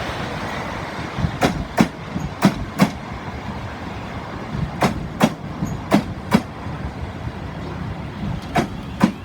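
Wheels of a slow-moving class 444 electric multiple unit clicking over rail joints, the clicks coming in pairs as each bogie's two wheelsets cross, over a steady rumble.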